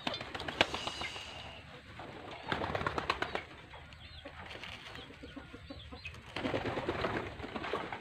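Domestic pigeons cooing and fluttering, in two louder bursts about two and a half and six and a half seconds in.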